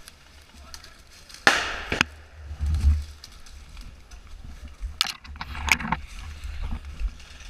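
Footsteps on dry leaf litter and twigs in woodland, with a loud half-second rush of noise about one and a half seconds in that ends in a sharp crack, and a few sharp snaps around five seconds in.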